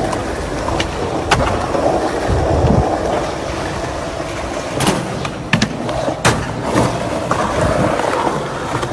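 Skateboard wheels rolling on smooth concrete, with several sharp clacks of the board against the ground, most of them bunched together in the second half.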